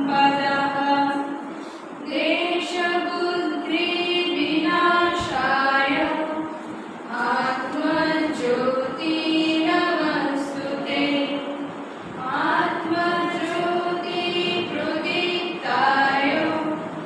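A mixed group of young singers sings a devotional song together in unison, in long phrases with short breaths between them.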